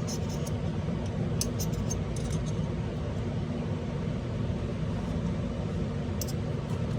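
Steady low background hum, with a few faint, short clicks of a small tool turning a frame screw into a paintball marker's frame.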